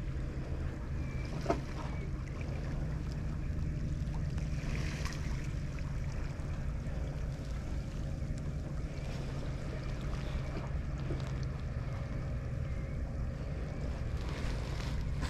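Steady low rumble of seaside ambience, wind and sea against a breakwater, with a small click about one and a half seconds in.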